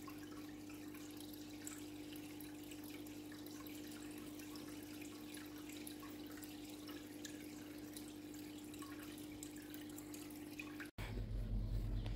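Koi pond water dripping and trickling with small scattered ticks over a steady low hum. About eleven seconds in it cuts off suddenly and a louder, deeper rumble takes over.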